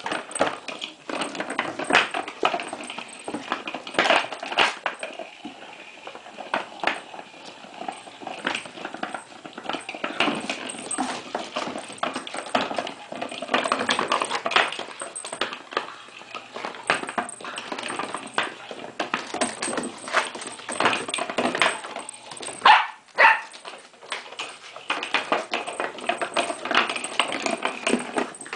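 A clear plastic ball toy with a smaller toy inside knocking and rattling across a hardwood floor as a puppy paws and mouths it, with the puppy's claws clicking and scrabbling on the boards. The knocks come in quick, irregular clusters, with one louder burst near the end.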